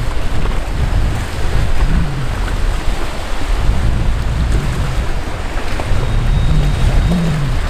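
Wind buffeting the microphone over fast-running, choppy canal water, a steady rushing noise with gusty low rumble.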